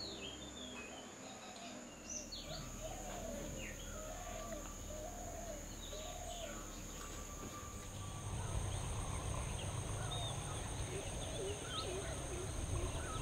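Outdoor birdsong: scattered short chirps and a run of five or so repeated arched calls, over a steady high-pitched insect drone. A low background rumble comes up about eight seconds in.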